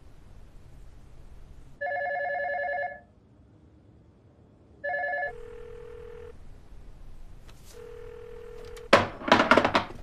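A telephone rings, a warbling ring of about a second, then a second ring cut short, followed twice by a steady low line tone. Near the end comes a quick cluster of loud knocks and clatter.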